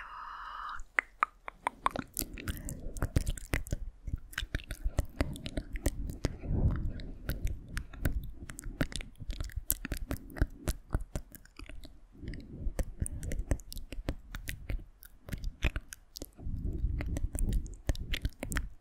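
Close-miked ASMR mouth sounds: a dense run of quick wet clicks and smacks, with a soft low rumble under them at times.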